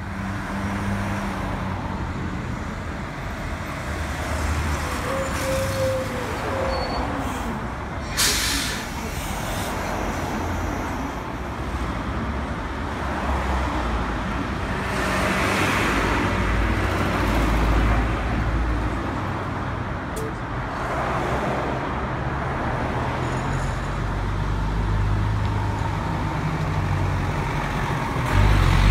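1999 Hino Blue Ribbon non-step city bus's diesel engine idling at a stop, with a short sharp air-brake hiss about 8 seconds in and further bursts of released air in the middle. Near the end the engine gets louder as the bus pulls away, over passing street traffic.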